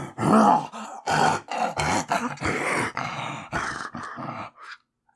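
A man's voice growling like a werewolf in a quick run of short, breathy growls, roughly two or three a second, that stops just before the end: the character changing into the wolf.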